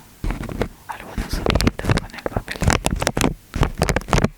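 Rapid, irregular close-miked clicks and taps, several a second.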